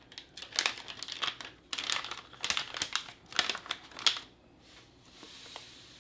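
Foil drink-mix pouch crinkling and rustling as it is handled, then a soft hiss of powdered drink mix pouring into a glass near the end.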